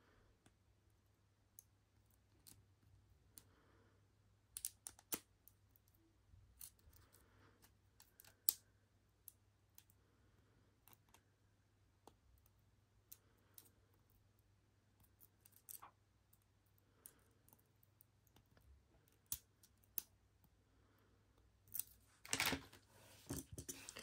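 Faint, scattered metallic clicks and scrapes of a lock pick and tension wrench working the pin stack inside a laminated padlock, with a louder cluster near the end.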